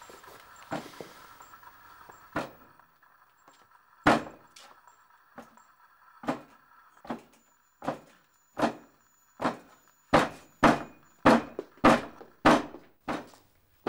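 A series of sharp knocks or thuds, more than a second apart at first, then coming faster and louder until there are nearly two a second near the end. A faint steady hum lies under the first few seconds.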